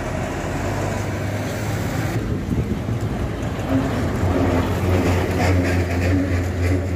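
Vehicle engine running with a steady low rumble, growing somewhat louder in the second half.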